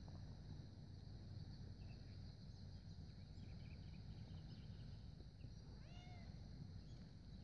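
Near silence: faint low outdoor rumble with a few faint chirps, and one short rising-and-falling call about six seconds in.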